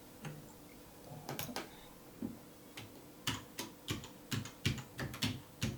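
Typing on a Cherry MX 6.0 mechanical keyboard with MX Red switches. A few scattered keystrokes at first, then steadier typing of about three keystrokes a second from roughly halfway in.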